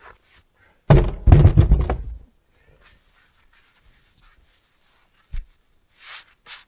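A burst of heavy wooden knocks and thuds lasting about a second, as chunks of firewood strike and tumble against each other, then a single dull thud about five seconds in.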